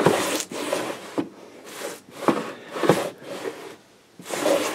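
Wooden stock being slid and pushed through a cutting jig by hand, with rubbing and scraping and a few sharp knocks of wood on the jig. No motor is running.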